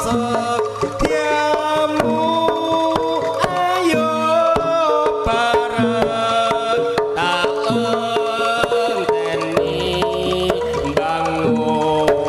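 Javanese jaranan ensemble playing: hand-drum strokes in a steady beat under a held, wavering melody line.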